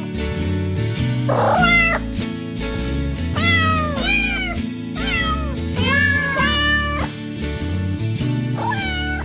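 Cat meowing repeatedly, about seven rising-and-falling meows, over background music with a steady beat.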